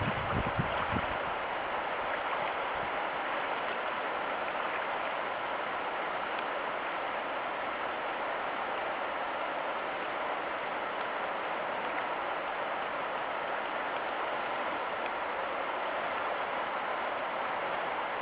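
Steady hiss of rain falling on a river, mixed with the rush of its current. A few dull bumps in the first second.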